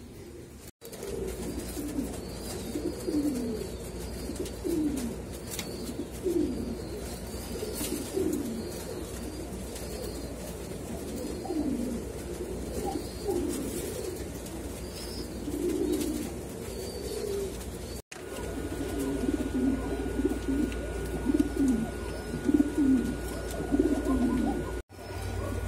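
Domestic pigeons cooing over and over, several birds overlapping in low rolling coos, over a steady low hum. The sound cuts out briefly near the start, about two-thirds of the way in, and near the end.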